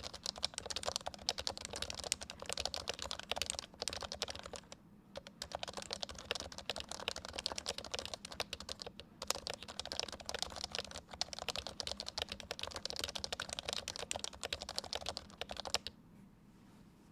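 Continuous fast typing on an HHKB Pro 3 keyboard with Topre switches, a dense run of keystrokes with two short pauses. The typing stops shortly before the end.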